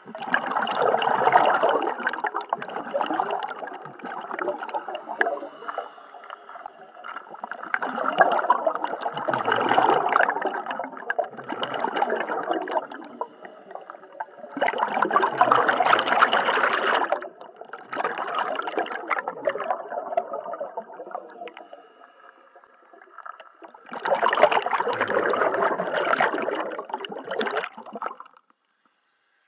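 Scuba regulator exhaust bubbles heard underwater: a diver's exhalations, about six bubbling bursts of a few seconds each with short pauses between. The sound cuts off sharply near the end.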